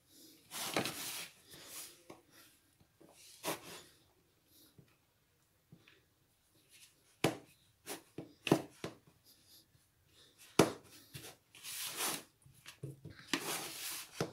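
Hands working a soft flour dough, first in a plastic bowl and then on the countertop: intermittent rubbing and scraping swishes, with a handful of sharp knocks in the middle as the dough and bowl are moved about on the counter.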